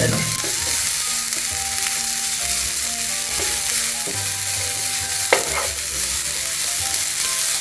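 Julienned carrots and spices sizzling in hot oil in a non-stick frying pan as they are stirred with a spatula: a steady frying hiss, with one sharper scrape of the spatula about five seconds in.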